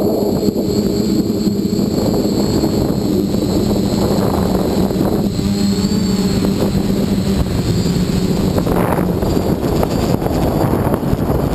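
Dead Cat 450 quadcopter's motors and propellers running steadily, picked up by the onboard camera, with a high motor whine whose pitch wavers briefly about halfway through, over a constant rush of air on the microphone.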